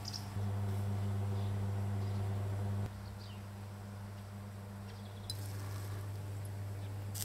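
A steady low hum from an unseen source, stepping louder and softer a few times, with a few faint, short, high chirps from birds.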